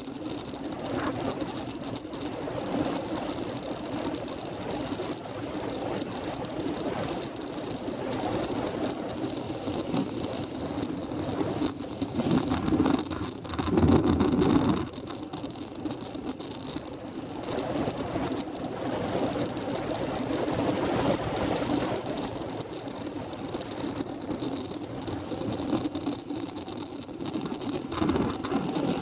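Steady rush of wind and road noise from a camera riding down a winding road, with a louder surge about 13 to 15 seconds in.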